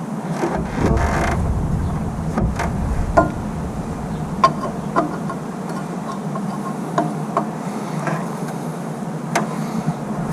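Hand tools clicking and clinking on metal at irregular intervals, about eight sharp strikes with a short ring, over a steady low hum. The tools are working a harmonic balancer puller on the crankshaft nose of a Ford 302 V8.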